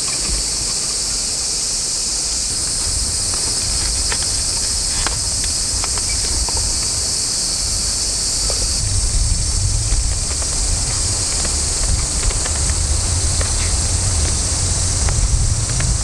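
Steady high-pitched chorus of insects in woodland, with a low rumble of wind on the microphone and a few faint clicks of wood being handled.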